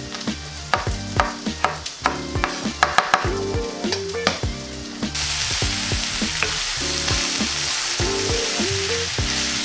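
Chef's knife chopping tomatoes on a wooden cutting board in a quick run of sharp strikes. About five seconds in, this gives way to a steady sizzle of ground vegan meat, zucchini and mushrooms frying in a cast iron skillet as they are stirred with a wooden spoon.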